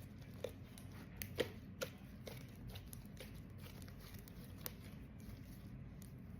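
Faint sticky clicks and pops of slime being squeezed and kneaded by hand, with a few sharper clicks in the first two seconds and one more near the end.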